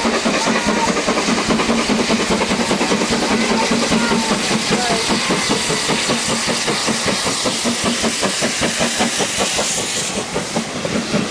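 GWR King class 4-6-0 steam locomotive No. 6024 King Edward I working hard past at close range, its exhaust beats coming in a quick, even rhythm over a steady steam hiss. Near the end the coaches follow, wheels clicking over the rail joints.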